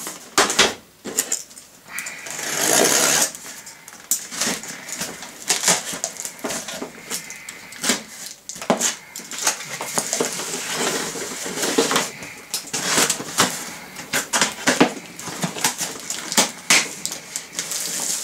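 A cardboard shipping box being turned over, handled and opened: a string of knocks, scrapes and rustles on the cardboard, with a longer rasp about two to three seconds in, as its packing tape is cut and the flaps are pulled open.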